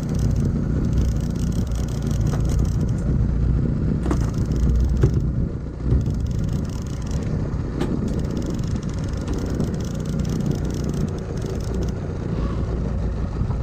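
A small boat's outboard motor running steadily while trolling, with a few light clicks and knocks through the middle.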